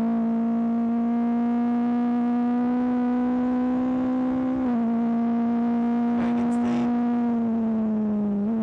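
BAC Mono R's 2.5-litre Ford Duratec four-cylinder engine pulling at high revs in a high gear, its pitch slowly climbing, then dropping in one step at an upshift about four and a half seconds in. The pitch sinks slightly near the end.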